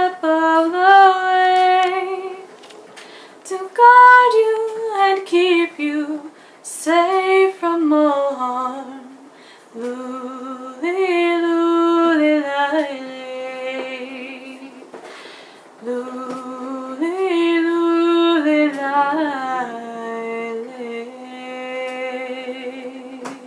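A woman singing a lullaby unaccompanied, in slow phrases with long held notes and short pauses for breath between them.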